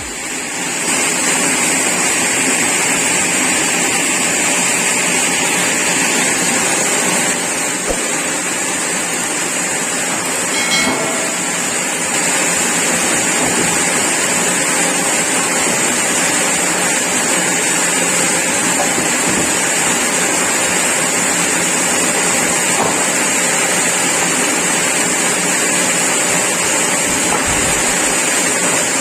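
Sawmill saw and its machinery running steadily, an even noise with a strong high hiss. There is a brief metallic ring about eleven seconds in.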